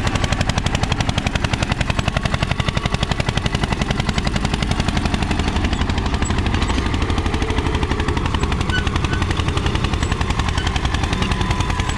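Mahindra 235 Airflow tractor's diesel engine running under load as it pulls a nine-tine cultivator through soil, with a fast, even exhaust beat.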